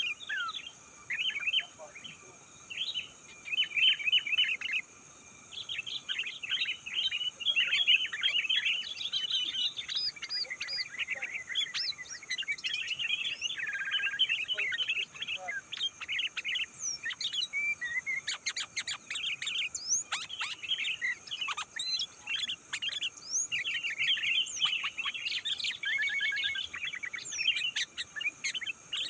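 Sooty-headed bulbuls singing, with rapid chirpy phrases and short whistles following one another almost without pause, some overlapping. A faint steady high hiss sits underneath.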